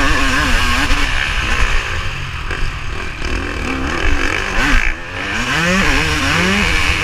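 Motocross bike engine racing, its pitch rising and falling with the throttle, dipping briefly about five seconds in and then revving back up, over a heavy rumble of wind on the mounted action camera's microphone.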